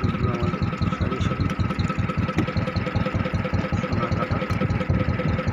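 A small engine running steadily with an even, fast chugging of about six or seven beats a second.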